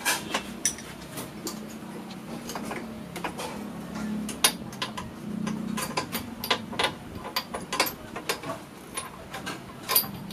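Irregular metal clicks and clinks of a spark plug wrench being fitted onto the scooter's spark plug, knocking against the surrounding engine parts.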